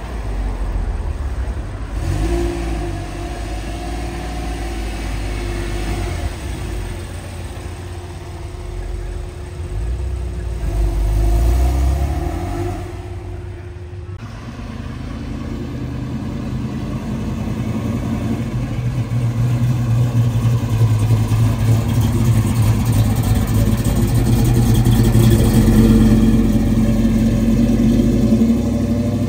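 Car engines revving in short rising and falling bursts. After a sudden change about halfway through, an engine runs at a steady pitch and grows steadily louder, loudest near the end.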